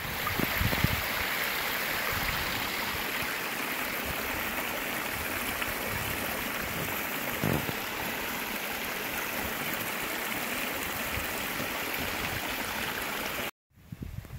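Steady rushing of a small waterfall cascading down a rocky mountain stream, with a couple of low bumps; the sound cuts off suddenly near the end.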